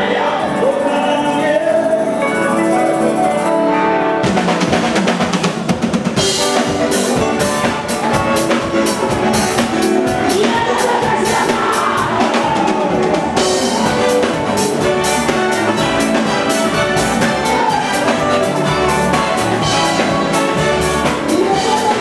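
Gospel music with singing and a band. The drums come in about four seconds in, with a steady beat.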